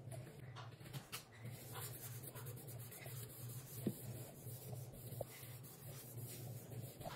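Cloth wiping a countertop: soft, irregular rubbing strokes with a few faint clicks, over a steady low hum.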